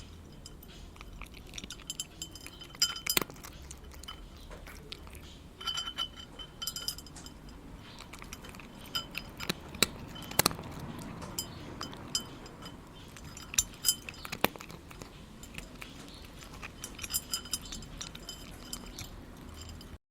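A cat eating, with irregular crunching bites and light clinks, a few sharper clicks standing out.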